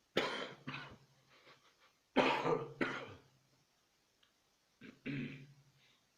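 Coughing in three bouts: two coughs at the start, two more about two seconds in, and a softer single cough about five seconds in.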